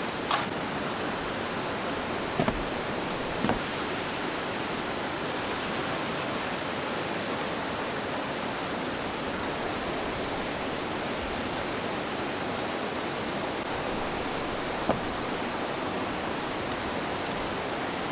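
Fast-flowing mountain stream swollen by monsoon rain, a steady rushing hiss of water. A few short sharp clicks sound over it, twice in the first few seconds, once more a second later, and once near the end.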